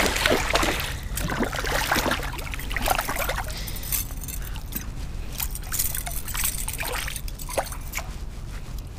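Fish on a stringer splashing and thrashing in shallow water, with water trickling and sloshing around them. The splashing is busiest in the first few seconds, then settles to lighter dribbling and sloshing.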